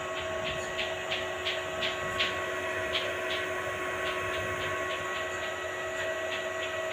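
Small inverter welding machine switched on and idling: a steady hum with several fixed tones, with irregular short ticks a few times a second.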